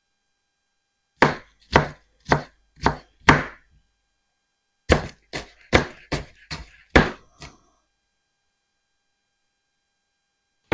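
Kitchen knife chopping a sweet onion on a cutting board: five separate strokes, then a quicker run of about eight strokes.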